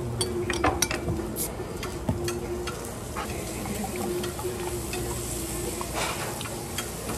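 Pork belly sizzling on a tabletop grill: a steady frying hiss, with scattered sharp clicks and clinks. Beer is poured from a bottle into a glass in the second half.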